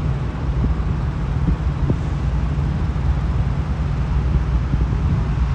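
Steady low rumble of idling semi-truck diesel engines, with a few faint knocks in the first two seconds.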